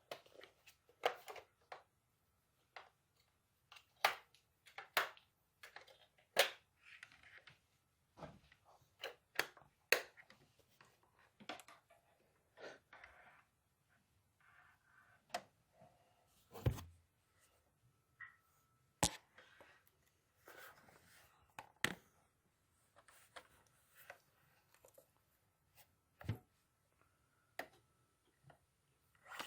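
Close handling noises: irregular small clicks, knocks and rustles of plastic parts, as batteries are fitted back into a wireless sensor's battery compartment. A couple of duller thuds come about halfway through and near the end.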